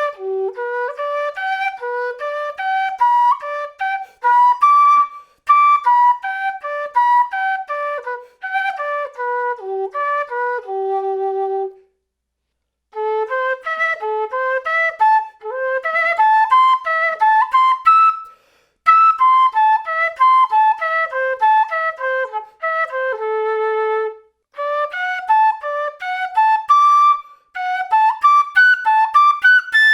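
Quena (Andean notched flute) played solo: arpeggio exercises that begin with G major, running up and down across the octaves in quick, separate notes. There are brief pauses for breath about 12, 18 and 24 seconds in.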